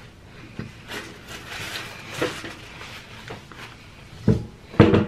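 Close-miked chewing with scattered wet mouth clicks and smacks from a person eating, then two dull knocks near the end, the loudest sounds, as a plastic water bottle is handled on the table.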